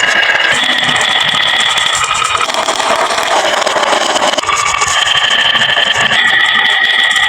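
Many glass marbles rolling and clattering down a wooden marble run, a dense, continuous rattle of clicks with some ringing tones.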